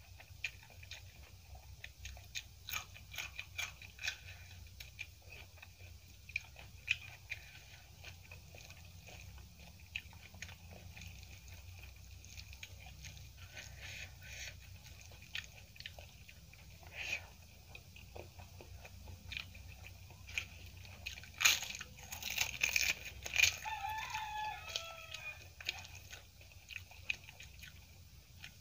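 Close-miked eating by hand: crisp papad crackling as it is crumbled and bitten, with chewing of rice and potato curry. The loudest crunches come about two-thirds through, followed by a short call with a wavering pitch in the background.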